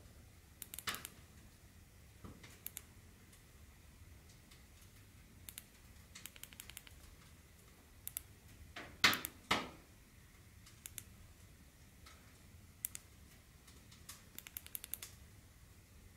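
Sofirn SP40 flashlight's side button clicking, first in single clicks and then in quick runs of about four clicks, the sequence that locks and unlocks the light. About nine seconds in there are two louder handling sounds.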